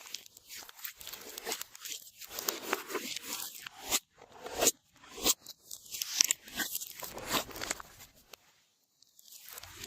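Glossy slime being squished and pressed by hand, giving crunchy crackles and sharp pops in repeated strokes, with a short pause near the end.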